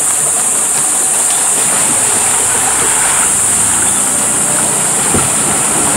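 Motorboat engine running steadily, with water rushing along the hull as the boat pushes through floating water hyacinth.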